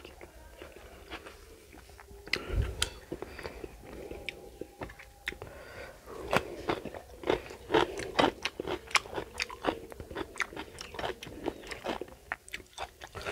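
Close-miked chewing of fried fish and rice eaten by hand, with crunchy bites and wet mouth clicks that come thick and fast in the second half. A low bump sounds a few seconds in.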